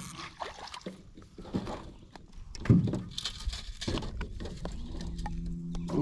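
Knocks and rattles as a hooked redbreast sunfish is swung into an aluminum boat and handled, with one louder thump a little before halfway through. A steady low hum starts near the end.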